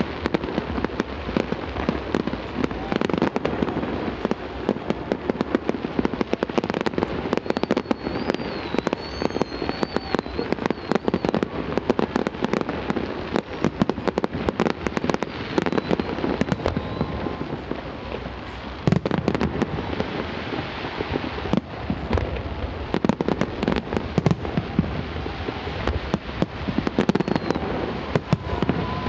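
Aerial fireworks display: a rapid, continuous barrage of shells bursting with bangs and crackles, and faint whistling glides about a third of the way in.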